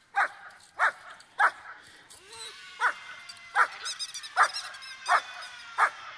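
A dog's squeaky toy squeaking as a Great Dane bites and tugs on it. The squeaks are sharp and short and come in a steady rhythm of about one every two-thirds of a second, with a quick run of higher, thinner squeaks about four seconds in.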